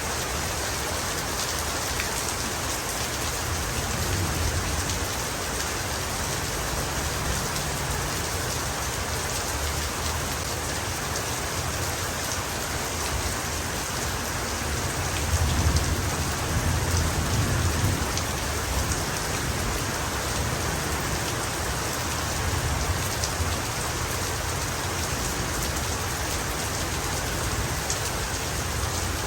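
Heavy rain falling steadily, with a low rumble of thunder swelling briefly about halfway through.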